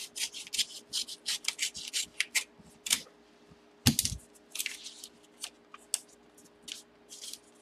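Scissors snipping through a yellow mailing envelope in a rapid run of short, crisp cuts, with a dull thump about four seconds in. After the thump comes more crisp paper rustling as the envelope is pulled open.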